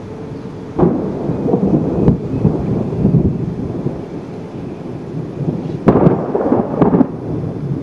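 Thunder from close lightning: a sudden crack about a second in and another near six seconds, each rolling on as a rumble, over gusting wind.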